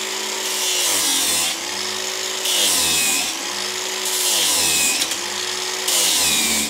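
Angle grinder running in a sharpening jig, grinding the cutting edge of a steel lawn mower blade in repeated passes. A steady motor hum is joined about every two seconds by a harsh grinding hiss lasting about a second as the disc is pushed across the edge, four passes in all.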